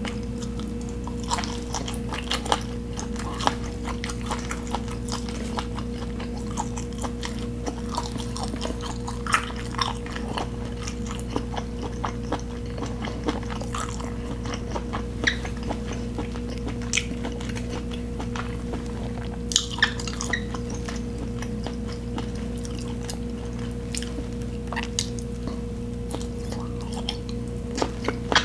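Close-miked eating: chewing, biting and wet mouth sounds, with many small sharp smacks and clicks at an uneven pace. A steady low electrical hum lies under the chewing.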